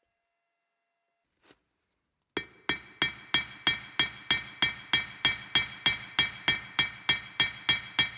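Hammer peening pins down into a metal wrench body held in a vise: steady, evenly spaced blows about three a second, each with a bright metallic ring, starting about two seconds in.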